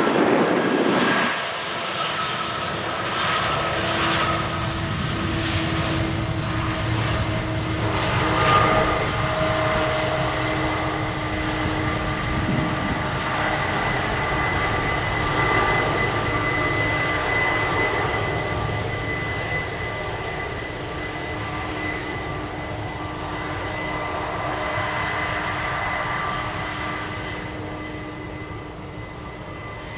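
Boeing 767-300ER twin turbofan engines whining steadily with a low rumble as the airliner rolls along the runway after landing. The sound is loudest in the first second or so, then drops to a steady whine that fades slightly near the end.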